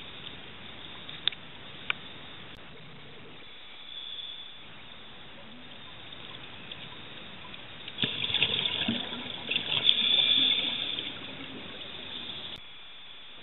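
Scuba diver breathing out through a regulator underwater, heard as a rush of bubbles about eight seconds in that lasts some three seconds. Before it there is a faint steady hiss and two light clicks near the start.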